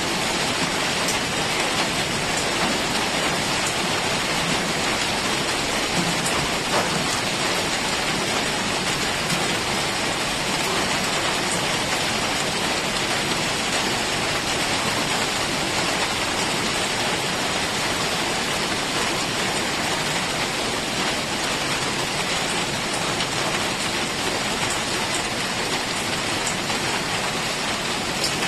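Heavy rain falling steadily on forest foliage, a dense even hiss with scattered drop ticks.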